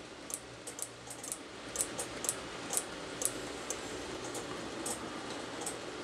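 Block-detection relays clicking over and over at an uneven rate as each wagon of an N gauge freight train reflects the infra-red sensor beam, with the faint steady running hum of the model train on the track beneath. The clicks thin out near the end as the last wagons clear the sensor.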